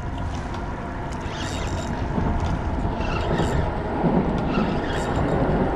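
Steady low rumble of traffic crossing the concrete bridge overhead, growing a little louder in the second half.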